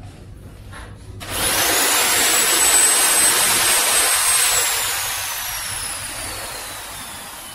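550-watt corded electric drill switched on about a second in and running at full speed with a high whine for about three seconds, then released so the motor spins down, its whine falling in pitch as it fades.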